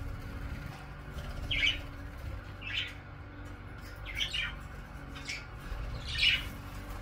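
Budgerigars giving short, sharp chirps, about five spread over several seconds, as they squabble over a green grain head.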